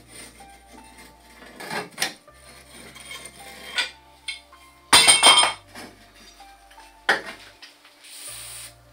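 Metal clinks and clanks from a rusty Raleigh Grifter frame and its parts being handled in a repair stand, with the loudest clatter about five seconds in and a sharp knock about two seconds later. Near the end comes a short hiss of an aerosol bike maintenance spray. Background music plays underneath.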